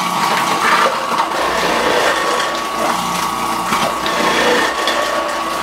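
Food processor running with its grating disc, shredding onions pushed down the feed tube: a steady motor whine over the noise of the onion being grated.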